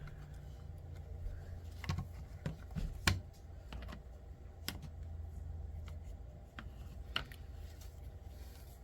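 Scattered small clicks and taps of RC crawler chassis parts being handled and pushed into place, about half a dozen spread out irregularly, over a low steady hum.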